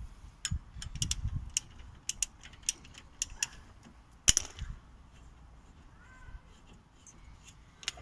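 Irregular metallic clicks and clinks of hand tools and bolts at a car's front brake caliper bridge as it is bolted back onto the hub, with one sharp metal knock about four seconds in.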